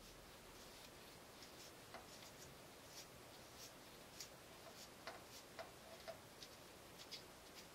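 Near silence with faint, uneven ticks and crackles, roughly two a second, as Teflon (PTFE) thread tape is pulled off its roll and wound around the threads of a metal pipe nipple.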